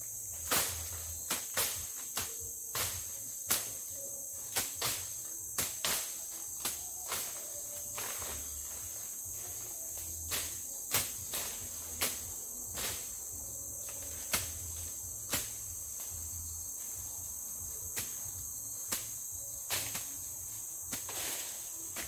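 Steady, high-pitched drone of tropical forest insects, with irregular sharp knocks about one or two a second from a person working in the undergrowth.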